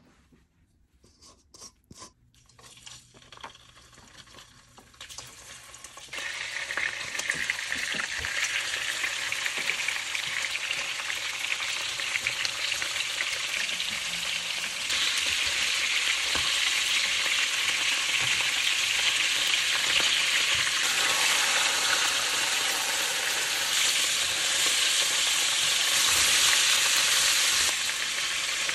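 Pieces of starch-coated Dungeness crab frying in hot oil in a nonstick pan, a steady sizzle. Scattered pops for the first few seconds, then the sizzle jumps up suddenly about six seconds in, as the crab goes into the oil, and grows louder again about fifteen seconds in.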